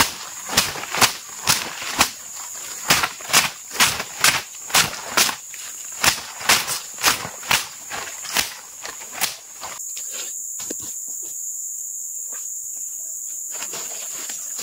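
Footsteps crunching over sawdust, wood chips and dry leaves, about two steps a second, for the first nine seconds or so, then stopping. Throughout, insects keep up a steady high-pitched drone.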